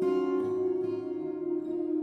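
Ambient background music: a sustained, ringing drone with a new note struck at the start that rings out over it.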